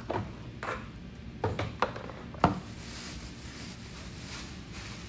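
Plastic bag being rummaged through by hand: a few short crinkles and knocks over the first two and a half seconds, then softer rustling.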